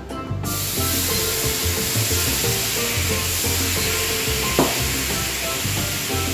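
Water sizzling on a very hot pan: a steady hiss that starts suddenly, with a short knock about four and a half seconds in. Soft background music underneath.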